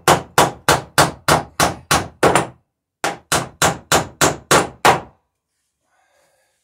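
Hammer tapping copper boat nails and burrs up snug in wooden dory bottom boards against a heavy steel backer, in quick even blows about three a second. Eight strikes, a short pause, then seven more, stopping about five seconds in.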